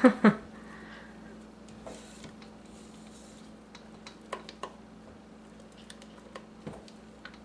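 Rubber spatula stirring thick, still-cooking kalamai corn pudding in a stainless steel pot: faint scattered ticks and soft scrapes of the spatula against the pot, over a steady low hum.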